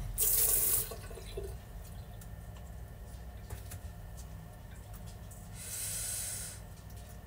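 Water running briefly from a tap into a sink, twice: a short hissing rush near the start and another, about a second long, near the end.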